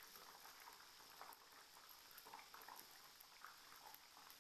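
Faint sizzling and crackling of battered tempeh pieces deep-frying in hot oil, with small irregular pops throughout.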